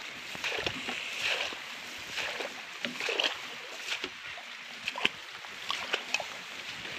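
Footsteps swishing through tall wet grass: an irregular rustling with small crackles as the stems brush past.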